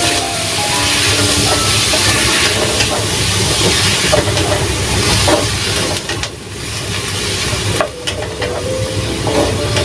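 Baby squid sizzling as it is stir-fried in hot oil: a loud, steady hiss that briefly dies down twice, about six and eight seconds in.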